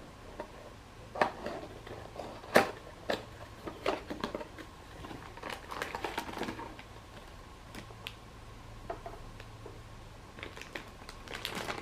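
Plastic packaging of a boxed figure being handled and opened: irregular clicks, taps and crinkles, the sharpest about two and a half seconds in, with busier crinkling around six seconds and again near the end.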